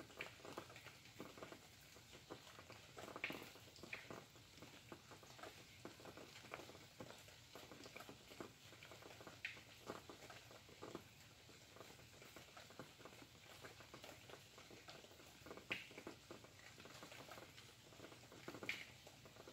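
Faint rain pattering: a dense, irregular ticking of drops, with a handful of louder single drips standing out now and then.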